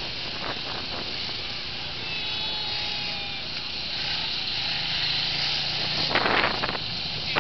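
A heavy vehicle's engine running steadily, largely masked by wind buffeting the microphone, with louder crackling about six seconds in.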